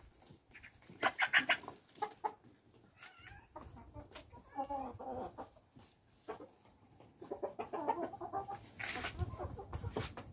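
Hens and roosters clucking in short, scattered runs of calls while they crowd around for food.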